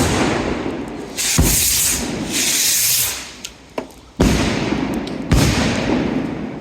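Fireworks going off: four loud bangs, the first two about a second and a half apart and the last two about a second apart, each followed by a crackling hiss that fades.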